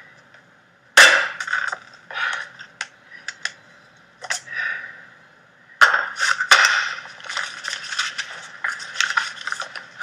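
A small hard object cracked and broken open by hand: a loud sharp crack about a second in, two more just before and after six seconds, with crunching, scraping and small clicks between them.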